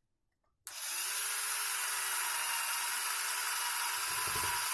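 Electric power drill starting about two-thirds of a second in and running steadily at high speed, a constant motor whine under a hiss, as it bores through the plastic power-strip case.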